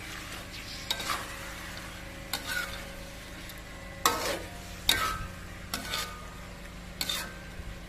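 Slotted metal spatula stirring and scraping meat and spices around a thin metal wok over a steady sizzle of frying. Sharp clinks and scrapes of metal on metal come at irregular intervals, about nine in all, the loudest about four and five seconds in.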